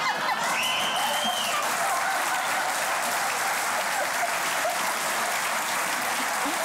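Studio audience applauding steadily, with a brief high whistle about half a second in.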